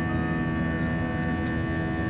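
Jet airliner cabin noise during the climb after takeoff: the engines' steady drone with a constant whine on top.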